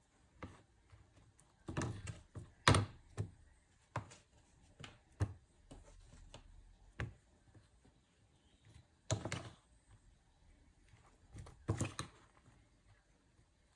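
Irregular knocks and thuds of objects being handled and set down, about a dozen in all, the loudest about three seconds in.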